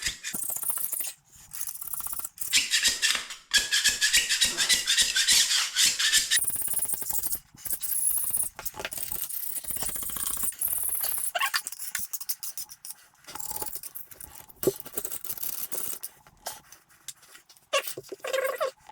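Hand scraper blade scraping old caulk off the floor where the toilet sat, in quick repeated strokes with short pauses between runs.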